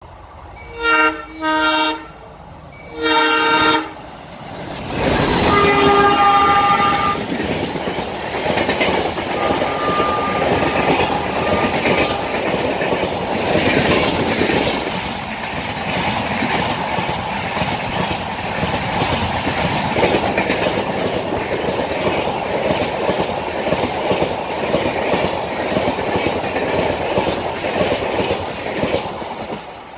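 Alco diesel locomotive sounding its horn in three blasts, two short ones about a second in and a longer one about three seconds in. The locomotive then passes at speed with its engine running loud, and the coaches follow, clattering over the rail joints.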